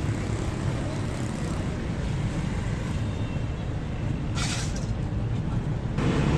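Street traffic noise: a steady rumble of passing vehicles, with a short hiss about four and a half seconds in.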